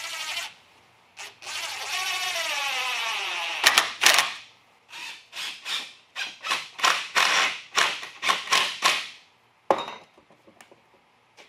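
DeWalt cordless drill driving screws into wood: a short run, then a longer run whose motor pitch falls as the screw bites and seats, followed by a quick series of short trigger bursts. A single knock near the end as the drill is set down on the wooden bench.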